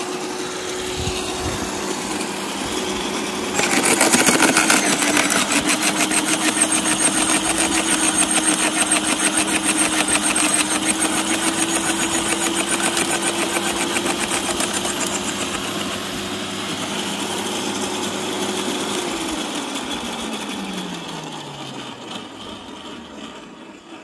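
Parkside PWH 2800 B2 electric roller branch shredder running; about three and a half seconds in, branches are fed in and the roller crushes them with rapid crackling, the motor's pitch dipping briefly under the load. Near the end the shredder is switched off and its whine slides down and fades as it winds down.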